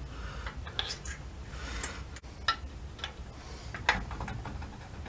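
Light metallic clicks and taps as a bolt is handled and fed by hand into the motorcycle's engine cradle mounting: a handful of separate clicks, the loudest about four seconds in, over a low steady hum.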